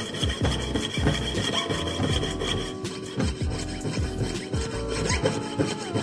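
Rhythmic back-and-forth strokes of a hand tool working silver, about two strokes a second.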